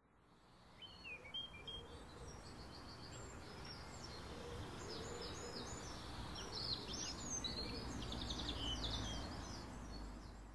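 Birdsong: several birds chirping and twittering over a steady bed of outdoor background noise and low rumble, fading in over the first second.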